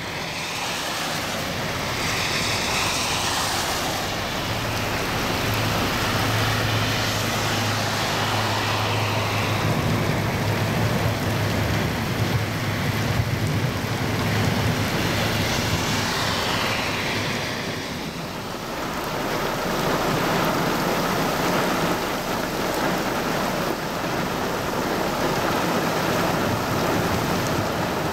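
Heavy rain falling steadily on a road, with vehicle tyres hissing through the standing water as traffic passes, swelling twice.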